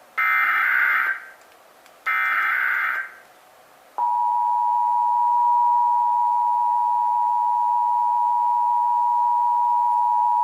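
Emergency Alert System SAME header: the last two of three bursts of digital data tones, each about a second long and a second apart, then about four seconds in the EAS two-tone attention signal (853 and 960 Hz together) starts and holds steady and loud.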